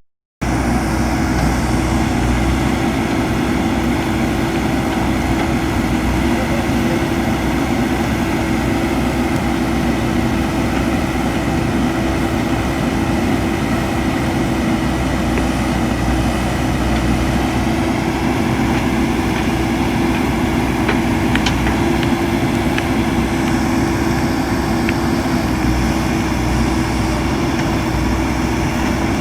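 JCB backhoe loader's diesel engine running steadily with a constant low hum.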